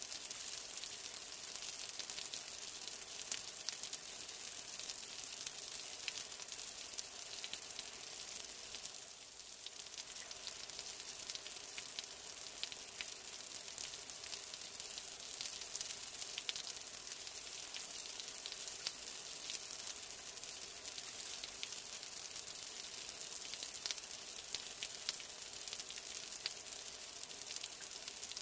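Steady rain: an even, high hiss dotted with many sharp ticks of drops hitting surfaces, easing slightly for a moment about nine seconds in.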